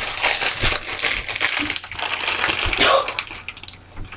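Packaging crinkled and crumpled by hand as dense, irregular crackling for about three seconds, then easing off near the end.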